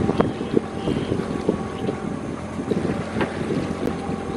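Wind buffeting the microphone on a boat at sea, a gusty crackling rumble, over a faint steady hum.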